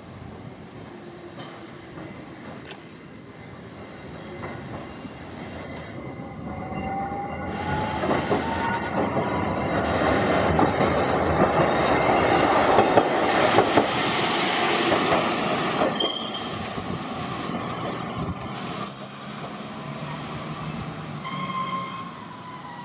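Hankai Tramway Mo 601-type streetcar pulling away and passing close by. A whine rises in pitch as it gathers speed, and its wheels clatter on the rails at the loudest point. Near the end there are two high-pitched wheel squeals.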